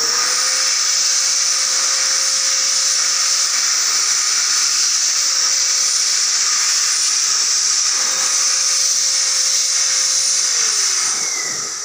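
Hand-held electric die grinder running at a steady high whine while its burr ports out a two-stroke mini bike's intake manifold. About ten and a half seconds in, the motor winds down and its pitch falls.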